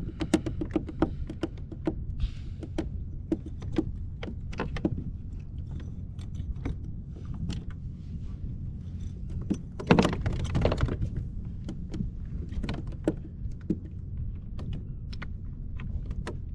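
Small irregular clicks and knocks of fishing tackle being handled on a plastic kayak, over a steady low rumble of wind and water on the microphone. A louder burst of rustling noise comes about ten seconds in.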